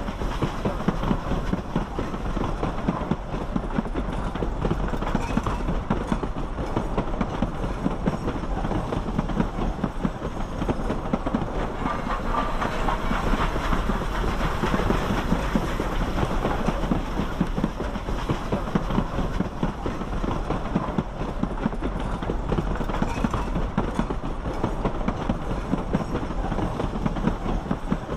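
Durango & Silverton narrow-gauge steam train running along the track, a steady dense rumble and clatter of the locomotive and coaches that does not let up.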